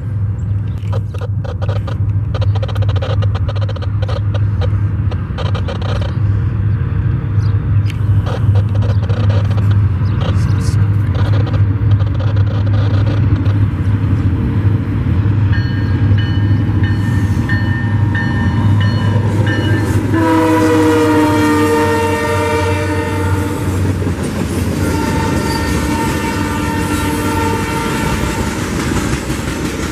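Freight train with EMD diesel locomotives passing close by: a steady low engine drone and repeated wheel clicks over the rail joints. About two-thirds of the way in, the locomotive horn sounds a loud chord that slides slightly down in pitch as it goes by, and it sounds again near the end.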